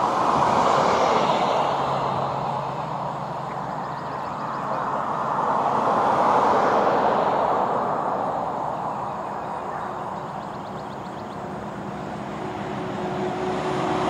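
Distant vehicle noise, a steady rushing rumble that swells and fades in slow waves, loudest about a second in and again around six seconds in.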